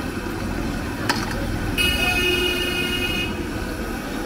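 Shrimp pakoras sizzling steadily as they deep-fry in a wok of hot oil, over street noise. A sharp click comes about a second in, and shortly after a vehicle horn sounds for about a second and a half.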